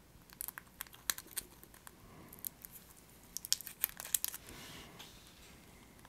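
Crinkling and a quick run of small sharp clicks as a tiny replacement HDMI chip is handled out of its plastic packaging, followed by a brief soft hiss a little past the middle.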